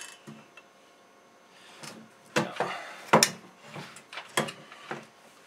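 Clunks and scraping as a Granberg Alaskan small log mill's aluminium frame, with an electric chainsaw mounted, is handled and shifted on a wooden workbench: a click at the start, then a run of irregular knocks and rubs, loudest twice around the middle.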